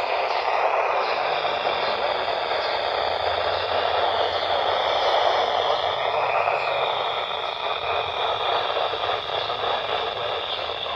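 Steady static hiss from a weather radio receiver tuned to a weak, distant NOAA Weather Radio signal, with no voice coming through.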